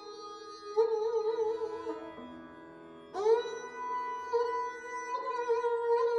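Sarangi played with the bow in Hindustani classical style: a slow phrase with wavering ornaments drops to a quieter low note, then about three seconds in a new note slides up and is held.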